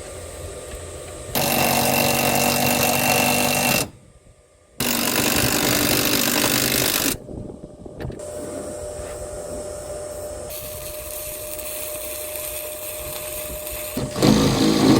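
Electric DC12V four-wheel trap hauler running, its motor and drive giving a steady whine in two loud spells of about two and a half seconds each that cut off suddenly. A quieter steady hum with a faint tone follows, growing louder near the end.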